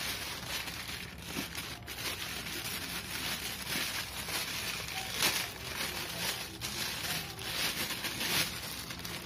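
Clear plastic packaging bag crinkling and rustling in the hands as a microphone pop shield is handled inside it: an irregular run of crackles, loudest about five and about eight seconds in.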